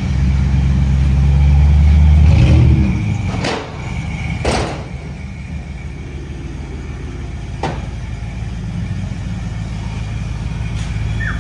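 Supercharged Hemi V8 of a Dodge Durango SRT Hellcat running through a Borla ATAK cat-back exhaust: a deep rumble swells up in a rev for about three seconds, then drops back to a lower steady rumble. A few short sharp cracks come in as it drops.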